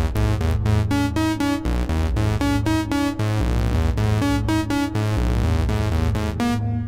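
Homemade analogue synthesizer playing a quick, repeating pattern of short, bright notes over a pulsing bass line. Its note pitch is set by control voltage from a MIDI-triggered keyboard synth.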